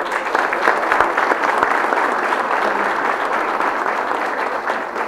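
Audience applauding steadily, a dense crowd of hand claps.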